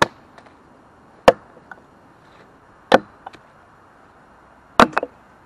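Fiskars X7 hatchet chopping into wood to split it: four sharp, loud strikes about a second and a half apart, some followed by a lighter knock.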